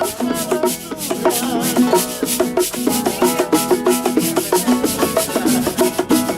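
Background music in a Latin style: quick melodic notes over a steady beat of hand percussion and shakers.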